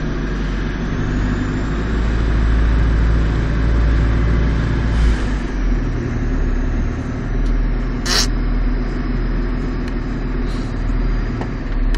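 Delivery lorry's diesel engine running while the lorry drives, heard from inside the cab as a steady low drone. A brief sharp hiss about eight seconds in.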